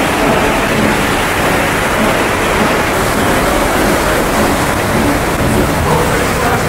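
Fast mountain river rushing through a narrow rock gorge: a loud, steady wash of water noise with no let-up.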